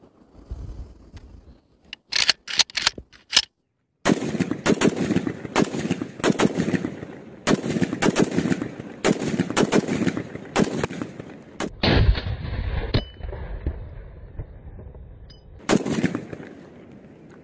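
Steel-bodied AK-47 rifle (7.62×39 mm) firing: a few separate shots about two seconds in, then a long string of rapid shots for about eight seconds, and one more shot near the end.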